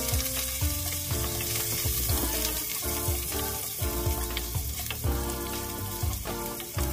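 Sliced ginger sizzling in hot oil in an aluminium pot, starting suddenly as the slices go in and carrying on while a plastic ladle stirs them, with a few light clicks from the ladle.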